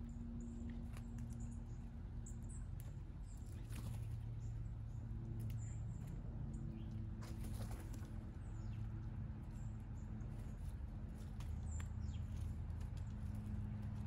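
Small backyard feeder birds giving scattered short, high chirps and call notes, with a few light clicks and patters, over a steady low hum.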